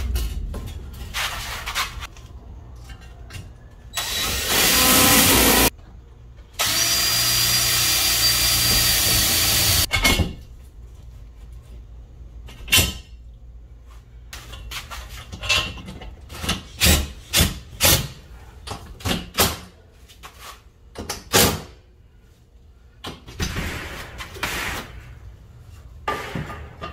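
Cordless drill driving screws into a screen door frame: two runs of the motor, the second a few seconds long, followed by a series of sharp taps and knocks.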